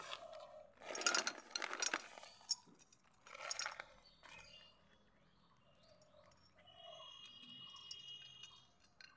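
A cat eating from a small metal bowl: crackling chewing and clinks against the bowl, loudest in a few bursts in the first four seconds. A bird chirps in the background near the end.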